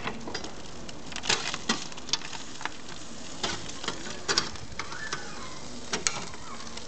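Irregular sharp clicks and knocks, about a dozen, over a steady background hiss.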